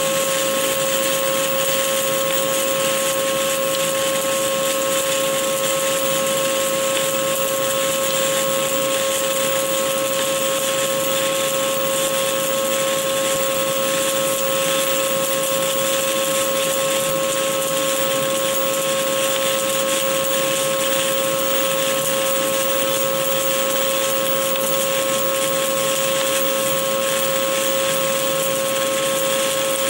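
Stick-welding arc of a 2.5 mm ESAB OK 48.00 (7018) low-hydrogen electrode burning steadily on an open root pass: an even, continuous frying hiss with no breaks in the arc, and a steady tone underneath.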